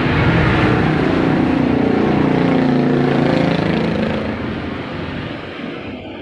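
A motor vehicle engine passing by: loud at first, its pitch dropping around the middle, then fading away over the last two seconds.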